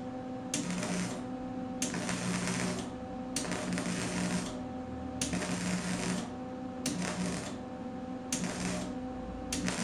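Wire-feed (MIG) welding arc on steel, crackling in short bursts of under a second, about seven times, as a seam is laid in a series of short stitch welds.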